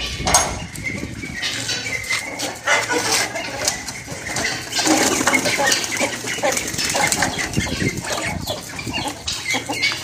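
Birds flapping their wings in irregular flurries, with short chirps among them.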